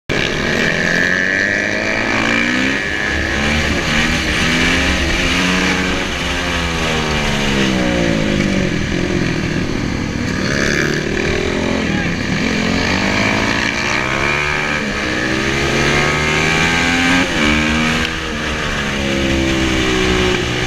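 Supermoto motorcycles racing, their single-cylinder engines revving up and falling away again and again as the riders shift, brake and accelerate through the corners.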